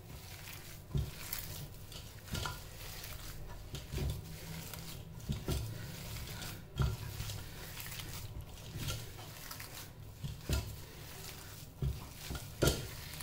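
A bare hand mixing and squeezing shredded-chicken shami kabab batter in a metal pot, with irregular knocks every second or two as the hand bumps the pot, a few louder ones near the end.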